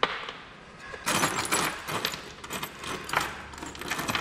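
Loose steel bolts, screws and washers clinking and rattling as hands rake through a pile of them on a wooden bench. One sharp clink at the start, then continuous jangling from about a second in.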